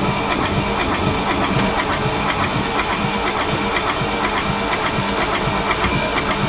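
Inboard marine diesel engine in its open engine bay, making a steady mechanical drone with a regular ticking knock.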